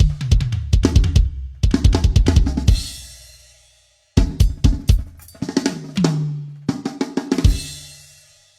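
Yamaha acoustic drum kit played in two short fills across snare, toms and bass drum. Each fill ends on a crash cymbal that rings out and fades before the next one starts.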